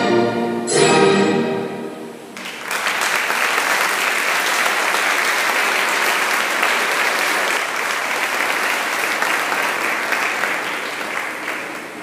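The dance music ends on two loud held chords, then an audience breaks into steady applause that slowly fades near the end.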